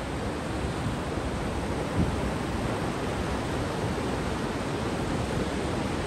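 Sea waves washing onto a beach, a steady rushing surf with no voices, and a brief low thump about two seconds in.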